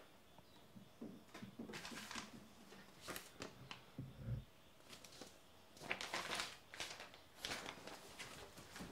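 Sheets of printed paper rustling as they are picked up from a table and handled, in short scattered rustles, with one dull low thump about four seconds in.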